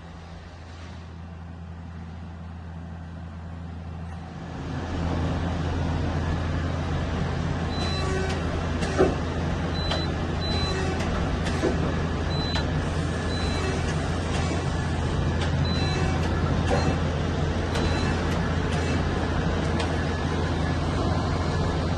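Okuma LB3000EX CNC lathe's live-tooling drive spinning up about four seconds in and then running at a steady speed with a constant hum. A few short high beeps and light clicks sound over it.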